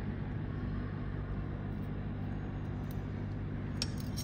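Steady low machine hum, with a light click near the end.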